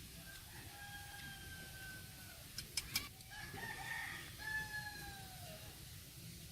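A rooster crowing twice, each crow a long drawn-out call, the second falling in pitch at its end. Two or three sharp clicks come between the crows.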